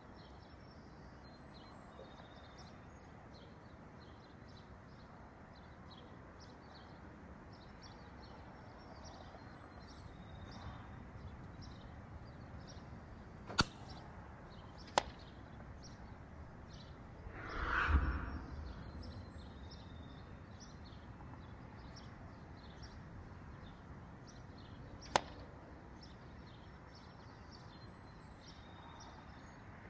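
Faint outdoor backyard ambience with short high chirps, broken by three sharp cracks, two about a second and a half apart a little before halfway and one more later. A swelling whoosh a bit past halfway is the loudest sound.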